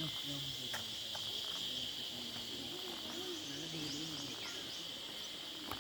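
Steady high-pitched chorus of insects, with people talking faintly in the background.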